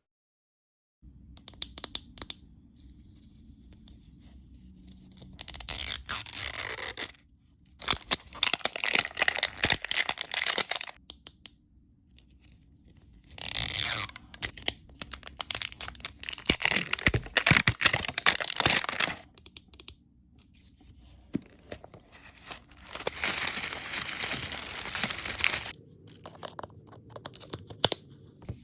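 Blind-bag packaging being torn open by hand, with crinkling and scraping, in four bouts of a few seconds each and quieter handling between.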